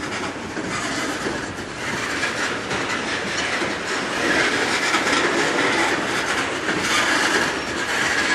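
Loaded coal hopper cars of a freight train rolling past, steel wheels clicking steadily over the rail joints.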